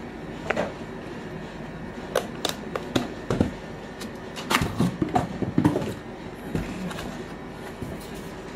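A cardboard product box being opened by hand: the lid slides off with scattered taps, clicks and short scrapes of cardboard and packing material, busiest around the middle.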